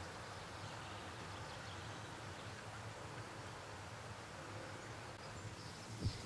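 Steady outdoor background noise with a low hum. Near the end comes a single thump, along with a few faint high-pitched squeaks.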